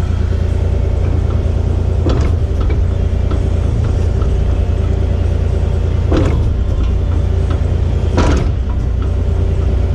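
Kubota 040 excavator's diesel engine running steadily under hydraulic load while the swivel bucket is turned with the control held fully over, with a few short sharp sounds about two, six and eight seconds in.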